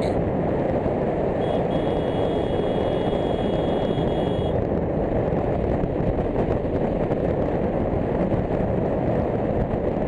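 Motorcycle on the move: steady engine noise mixed with wind rushing over the rider's microphone.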